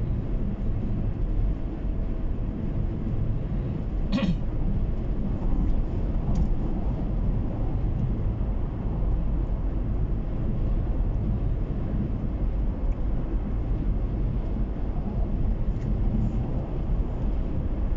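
Steady low road and engine noise of a car cruising on a highway, heard from inside the cabin, with one brief high squeak about four seconds in.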